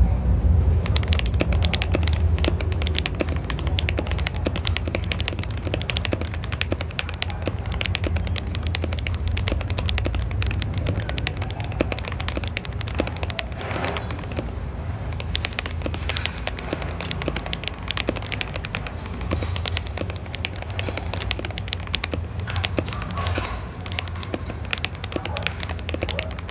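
Typing test on a mechanical keyboard fitted with budget Matcha Eye switches: a dense, continuous run of keystrokes. The sound is small and crackly rather than deep, a bit shrill, without much ring or rattle. A steady low hum runs underneath.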